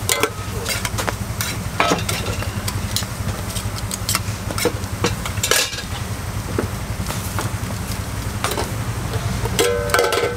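Ramly burger patties sizzling on a steel flat-top griddle, with metal tongs clicking and scraping against the plate in sharp, irregular strokes over a steady low hum.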